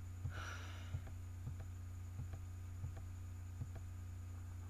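Light computer key clicks, about one every two-thirds of a second, as the debugger is stepped through the loop one instruction at a time, over a steady low electrical hum. There is a short soft hiss about half a second in.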